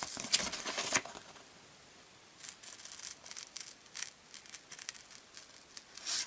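Scissors snipping through a sheet of printed paper, with the paper rustling. A busy run of cuts comes in the first second, then fainter scattered snips, and a louder one near the end.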